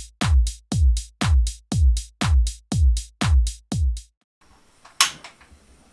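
Electronic drum-machine beats in a fast, even run of deep kicks, about four a second. They stop about four seconds in, followed about a second later by one sharp snap, the clap of the intro's film-clapperboard effect.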